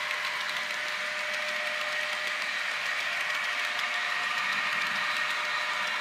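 HO-scale model express train rolling past on the layout: a steady mechanical whir of the wheels on the rails, with a faint constant whine and light scattered clicks.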